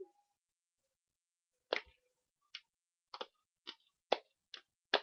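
A run of sharp hand claps that starts almost two seconds in and comes quicker toward the end, like a hand-clapping game getting going.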